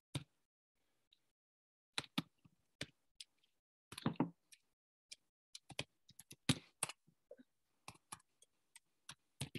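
Computer keyboard being typed on: irregular single keystroke clicks with short pauses, coming quickest a little past the middle.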